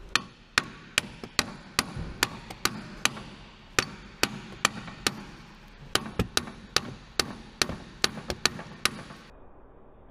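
Repeated hammer blows on the CV joint of a Honda Civic's drive shaft, about two dozen sharp strikes at two to three a second, to knock the joint off the shaft. The blows stop about nine seconds in.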